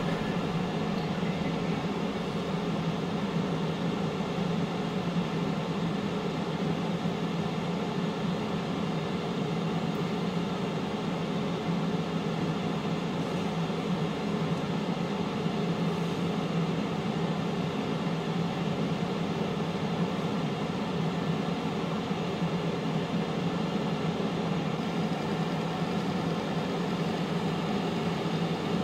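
Power XL air fryer running at 370 °F, its fan giving a steady, even hum with a strong low tone.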